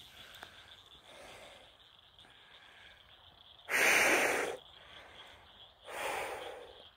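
Two loud, breathy exhales close to the microphone, one about four seconds in lasting nearly a second and a shorter one near the end, over a faint steady high hum.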